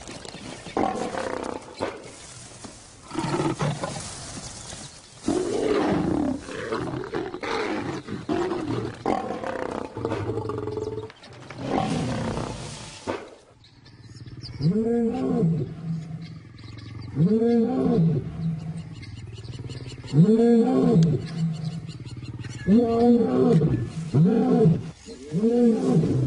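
Male lions snarling and growling harshly during an attack for about the first half. Then a male lion roars: a series of deep, rising-and-falling calls about every two to three seconds, coming closer together toward the end, an aggressive show of displeasure.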